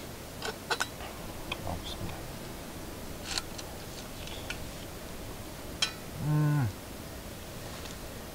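A cow moos once, a short low call of about half a second that dips in pitch at its end, some six seconds in. Before it come a few sharp clicks and taps.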